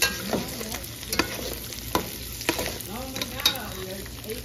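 Beef and pork chorizo with eggs frying in a pan and being stirred, with a utensil knocking against the pan about five times.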